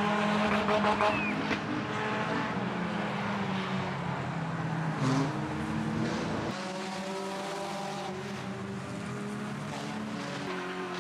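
Several old banger race cars' engines running and revving together, their pitches rising and falling. The deep low rumble drops away about six and a half seconds in.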